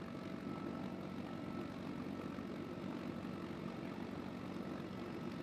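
In-flight cabin noise of a CH-53E Super Stallion heard from the open rear ramp: a steady low rumble from the helicopter's turboshaft engines and rotor system, with a thin steady whine above it.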